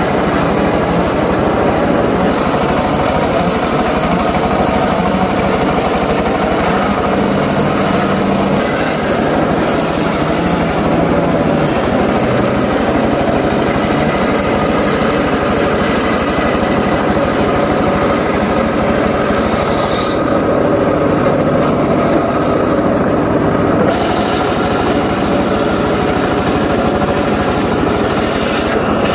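Homemade engine-driven circular saw rig running steadily, with a high hiss of the blade cutting wood that comes in about 8 seconds in, drops out around 20 seconds and returns near the end.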